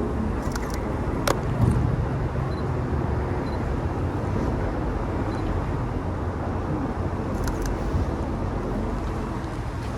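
Street ambience with a steady low rumble of road traffic, broken by a few sharp clicks of a camera shutter: one about a second in and a couple more near the end.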